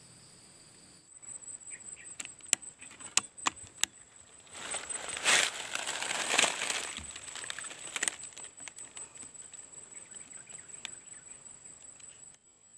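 Rustling with a few sharp clicks, loudest in a swell from about four and a half to seven and a half seconds in, over a steady high-pitched insect drone.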